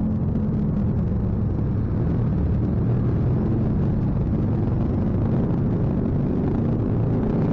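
Motorcycle engine running at a steady low speed under a constant low wind rumble from riding.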